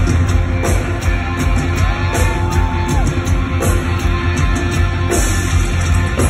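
Live rock band playing loud: electric guitar over a drum kit, heard from within the audience, with a heavy, boomy low end. A single pitched note is held for about a second near the middle.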